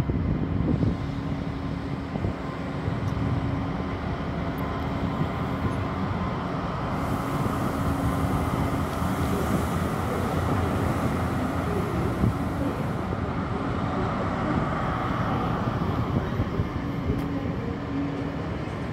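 Freight train on the station tracks: a diesel locomotive's steady engine hum over the continuous rumble of wagons rolling past. A band of added hiss sets in about seven seconds in and stops about six seconds later.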